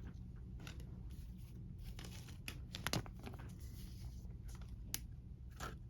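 Baseball trading cards being handled and shuffled: faint rustling with a handful of light, sharp clicks and taps, the clearest about three seconds in and again near five seconds.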